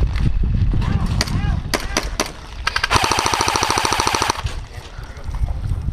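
Airsoft rifle firing one full-auto burst of about a second and a half, a rapid even rattle of shots, about three seconds in. Before it come a few single sharp cracks over rumbling handling and wind noise on the microphone.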